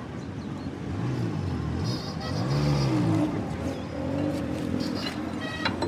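A motor vehicle's engine going past, its pitch rising and then falling, loudest about two and a half seconds in. A short sharp click near the end.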